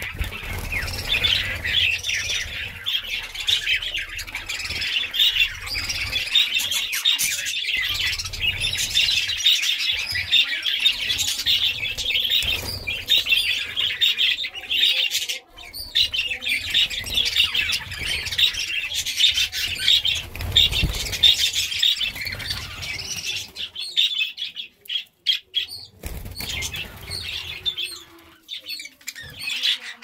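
A large flock of budgerigars chattering continuously, many birds at once, with wing flutters as birds fly between perches. The chatter briefly drops out about halfway through and thins, with short gaps, in the last few seconds.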